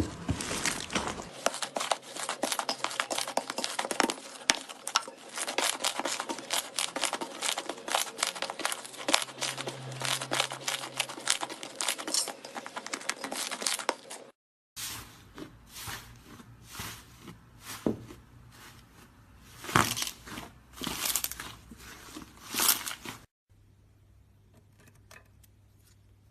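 Slime being pressed and stretched by hand, giving a dense run of crackling and popping clicks. After a brief cut about halfway through come sparser, louder squishes and pops, then faint room tone near the end.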